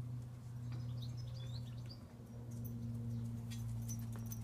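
Garden birds chirping, short repeated high calls clustered in the first second or so, over a steady low hum. A few faint ticks follow in the later part.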